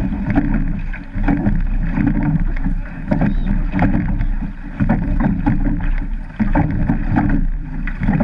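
Rowed surf boat under way at sea: wind buffeting the camera microphone and water rushing along the hull, swelling and easing with the strokes, with frequent sharp clicks and clunks from the oars working in their gates.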